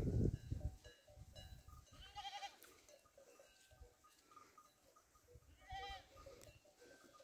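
Goats bleating faintly, two wavering bleats, about two seconds in and again near six seconds. A brief low rumble at the very start.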